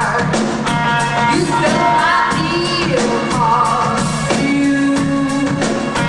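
Rock band playing live, a woman singing the lead vocal over a steady drum beat.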